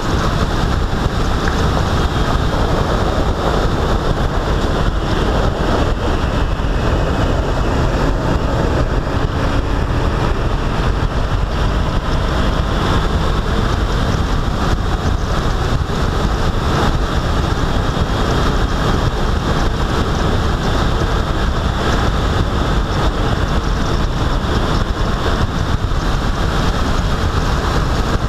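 A road vehicle travelling at speed: a steady rush of wind on the microphone and road noise, strongest in the low end, with no breaks. A faint high whine drifts slowly in pitch through it.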